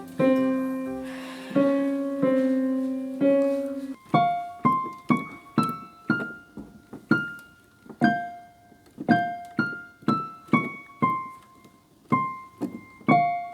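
Piano playing a simple melody one note at a time. The first few notes are held longer; from about four seconds in, the notes come separately at about two a second, each struck and fading.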